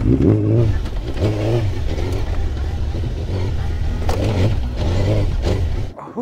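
Suzuki GSX-R1000's inline-four engine revving up and dropping back several times as the bike is ridden hard off-road. The sound cuts off suddenly near the end.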